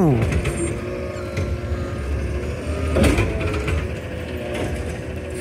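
Recycling truck's engine running steadily at the curb, with a single knock about three seconds in.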